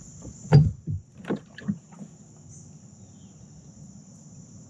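A few knocks and thumps on a plastic fishing kayak's hull and gear as the angler moves about and sits back down, the loudest about half a second in and the last just before two seconds. After that only a faint steady high insect buzz remains.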